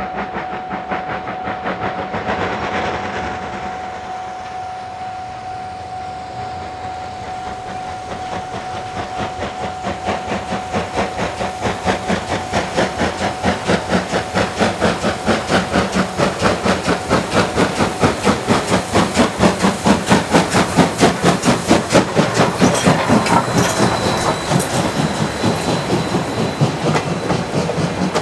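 Steam locomotive C57 1 hauling its train past, with a fast, even beat that grows louder to a peak about three-quarters of the way through, then eases off.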